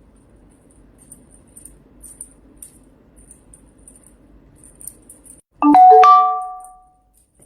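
Two-note doorbell chime, a ding-dong struck about five and a half seconds in, its two tones half a second apart and ringing out for about a second.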